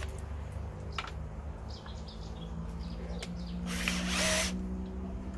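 Cordless drill running as it bores a large hole in pallet wood for a big screw, with a short burst of cutting noise about a second in and a louder, longer one about four seconds in.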